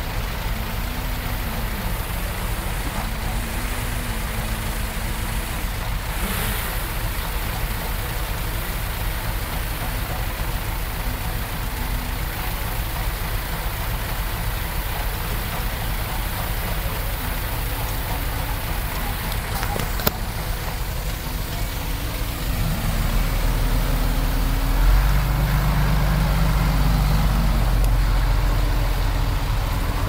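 Diesel engine of heavy earthmoving machinery running, its pitch rising and falling as the throttle changes, then working harder and louder from about two-thirds of the way in. A single sharp click about 20 seconds in.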